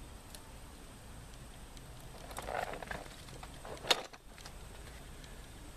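Faint steady background hiss, with a brief rustling patch about two and a half seconds in and a single sharp click about a second later.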